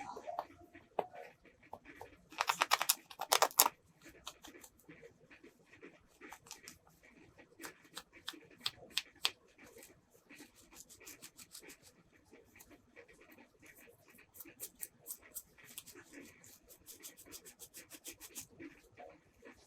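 Small hard clicks and taps of plastic toy pieces being handled, with a dense, fast rattle from about two and a half to three and a half seconds in and quicker runs of clicks later on.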